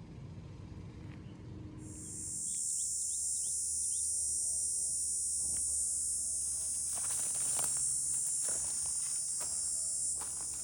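An insect's loud, steady, high-pitched buzz starts about two seconds in and holds until just before the end. A few short chirps come near its start, and there are scattered soft crackles later on.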